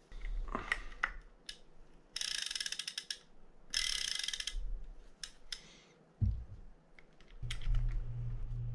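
A small metal ratchet clicking rapidly in two runs of about a second each, with a few single clicks and light knocks around them. A low steady hum starts near the end.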